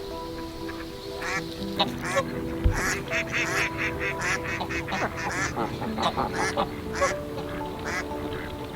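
Bird calls: a quick run of about five calls a second in the middle, with single calls before and after, over background music with held notes.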